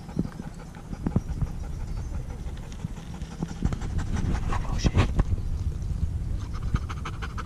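Golden retriever panting after exertion, over a low steady rumble, with a few sharp knocks about one and five seconds in.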